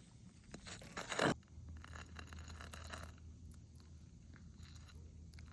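Short scraping and rustling, loudest about a second in, then fainter scratchy sounds that die away by about three seconds, leaving a faint steady low hum.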